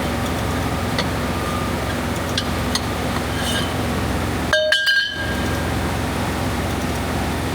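A steady machine drone with a few light ticks, and a ringing metallic clink about four and a half seconds in, while the drone briefly cuts out.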